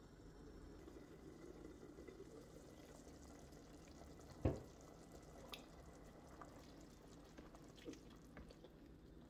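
Faint steady bubbling of lentil soup simmering in a pot, with one sharp knock about four and a half seconds in and a few light ticks later as the soup is stirred.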